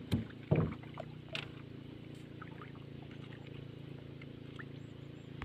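A boat engine running steadily. A few short knocks in the first second and a half.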